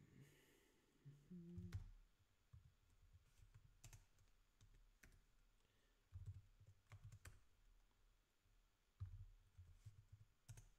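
Faint typing on a computer keyboard: scattered single keystrokes and short quick runs of presses.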